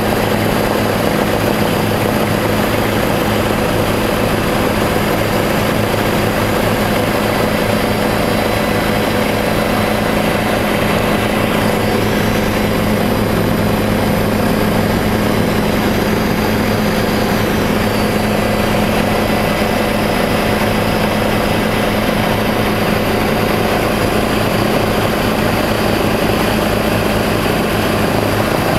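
Helicopter in flight, heard from inside the cabin: the steady drone of the rotor and engine, with a constant hum and no change in pitch or level.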